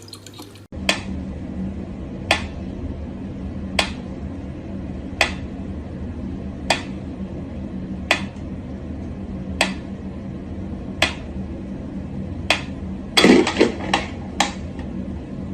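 Sharp knocks of something hard, one about every second and a half, over a steady low hum, with a quick flurry of knocks near the end.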